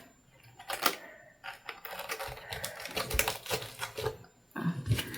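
Quick, irregular clicks and clatter of hard small parts being handled, with short gaps of silence in between.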